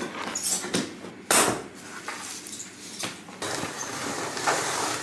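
Large cardboard TV box being handled and shifted: rustling and scraping of cardboard, with one loud scrape about a second and a half in.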